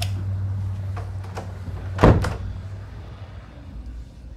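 A wooden room door being pulled shut: a few light clicks of the handle, then a loud double thud about two seconds in as the door hits the frame and latches. A low steady hum underneath fades out shortly after.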